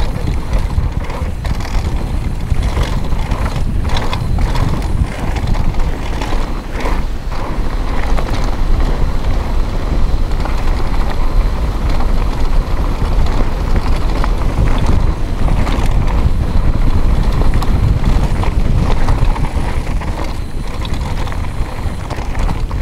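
Mountain bike rolling downhill at speed over dirt and loose gravel: a steady rumble of tyres on the surface, with frequent clicks and knocks from the bike's rattling parts.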